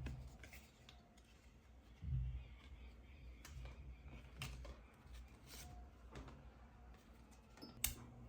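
Quiet handling sounds: scattered soft clicks and taps, a dull thump about two seconds in, and a sharp click near the end.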